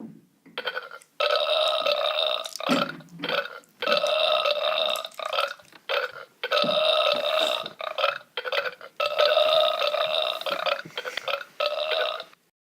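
A long run of burps belched in place of singing: about eight drawn-out belches, each held on a steady pitch, with short breaks between them, stopping shortly before the end.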